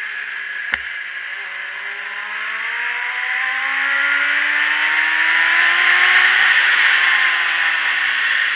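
Onboard sound of a sport motorcycle at speed on a race track: heavy wind rush over the engine, whose note climbs steadily as the bike accelerates and then eases off slightly near the end. A single sharp click comes just under a second in.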